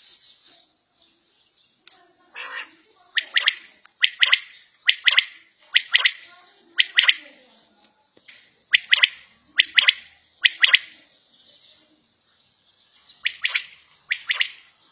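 Quail (batair) calling: short, sharp doubled notes repeated about once a second, in bouts broken by short pauses.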